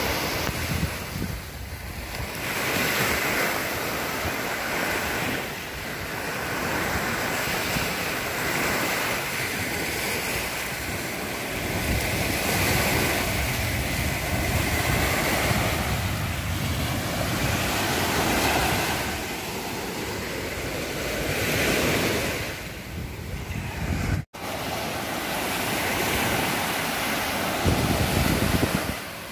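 Small waves breaking and washing up a sandy beach, the surf swelling and easing every few seconds, with wind buffeting the microphone.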